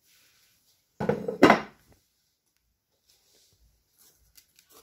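Two quick knocks about a second in, close together, as a glass bowl and dish are handled on a tabletop. Faint rustling and small clicks follow.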